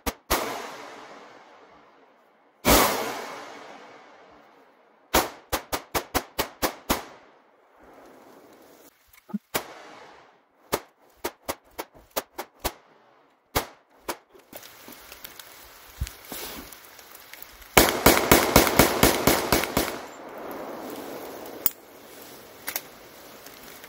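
Gunshots: a few single shots, the loudest about three seconds in with a long echoing tail, then a quick string of about eight at roughly four a second. Scattered shots follow, then a rapid string of about a dozen at roughly six a second near the end.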